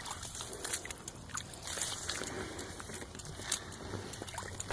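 Footsteps wading through deep standing floodwater, with irregular sloshing and splashing around the legs.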